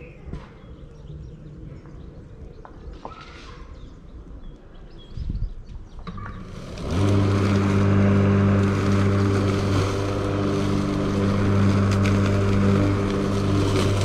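A motor engine starts up about seven seconds in and runs steadily and loudly with an even low hum, drowning out the faint bird chirps heard before it.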